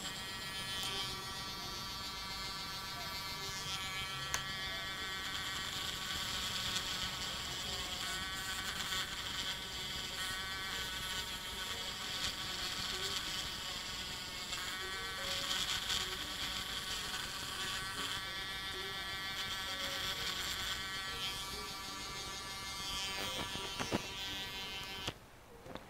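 Small handheld rotary tool running at high speed, its white grinding bit sanding the inside edge of a plastic SIM card adapter frame. The steady whine sags in pitch now and then as the bit bears into the plastic, and cuts off near the end.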